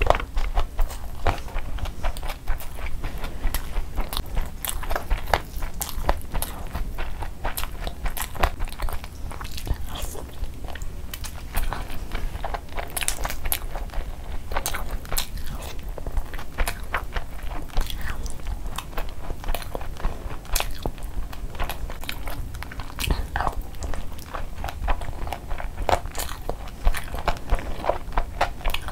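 Close-up eating sounds: a person chewing big handfuls of spiced rice and meat eaten by hand, with a steady stream of short wet mouth clicks and smacks.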